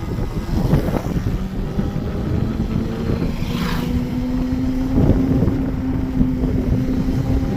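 Ola S1 Pro Gen 3 electric scooter running, its motor giving a steady whine that rises slowly in pitch over low rumble and wind noise. This is the noise and vibration the owner reports as a problem.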